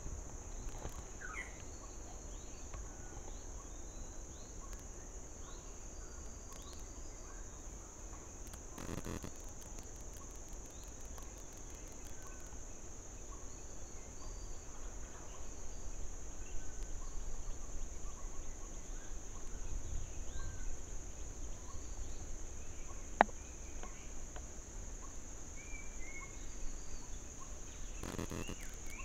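Forest ambience: a steady high-pitched insect drone, with many short bird chirps and calls scattered over it and a low rumble underneath. A single sharp click comes about 23 seconds in.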